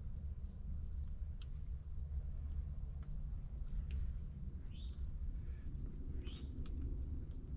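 Two short rising bird chirps, about a second and a half apart, over a steady low rumble, with a few faint clicks.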